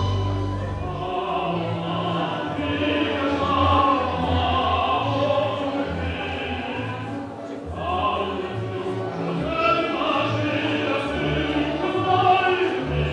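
Dance music with a singing voice over a changing bass line.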